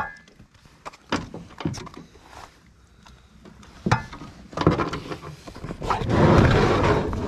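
Handling noises in a small fishing boat while a hooked fish is brought in: scattered sharp knocks and thumps, then a loud rushing, rustling noise for about a second and a half near the end.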